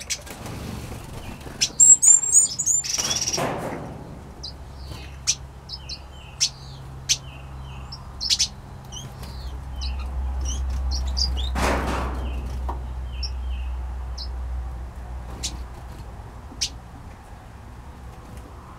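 Small aviary finches and parrots calling: many short, high chirps and tweets scattered throughout, with two brief rushes of noise, about three seconds in and near the middle. A low rumble rises and fades in the middle of the stretch.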